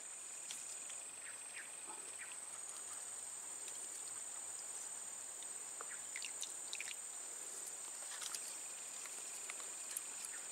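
Steady high-pitched insect trilling, with faint scattered short chirps and ticks over it.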